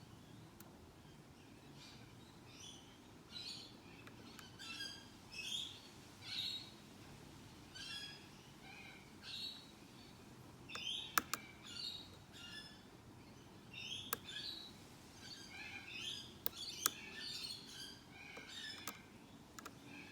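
A pin-tumbler padlock being picked, with a few sharp metallic clicks from the pick and pins, the two loudest about eleven and seventeen seconds in. Short high chirps recur throughout, every half second to a second.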